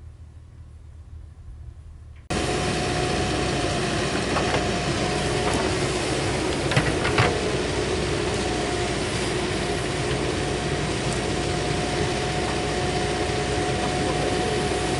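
Heavy-machine diesel engine running steadily, close and loud. It cuts in abruptly about two seconds in after a faint low rumble, with a couple of sharp knocks near the middle.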